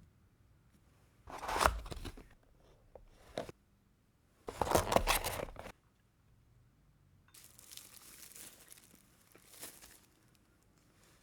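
Packaging being torn open and crinkled: two loud tearing rustles about one and a half and four and a half seconds in, then a softer, longer rustle near the end.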